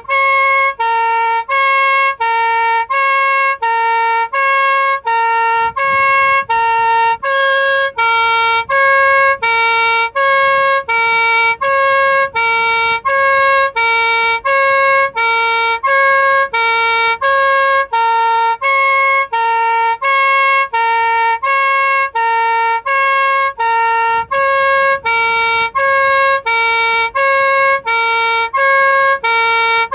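Two-tone police siren ("horn") of a Jaguar police car heard from inside the car, sounding on its own and alternating evenly between a low and a high note, each held a little under half a second.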